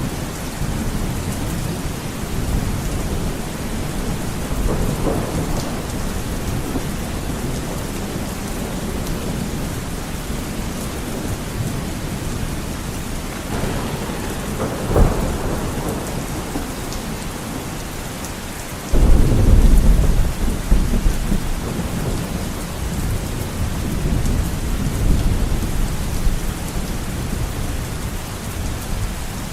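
Heavy rain hitting a window in a steady downpour, with thunder. A sharp crack comes about halfway through, then a loud, deep rumble starts suddenly about two-thirds of the way in and rolls on for several seconds.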